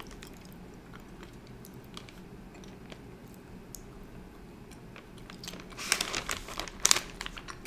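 Close-miked chewing of a soft, taffy-like sour dough candy: faint wet mouth clicks at first, then a louder run of crackly sounds about six seconds in.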